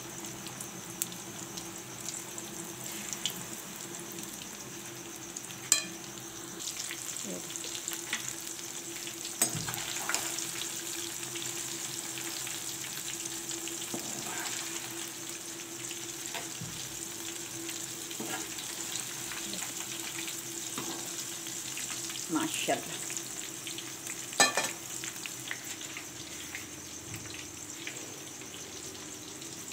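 Gram-flour pakoras deep-frying in hot oil in a metal kadai, a steady sizzle, stirred with a slotted metal spoon. A few sharp clinks of the spoon against the pan come through.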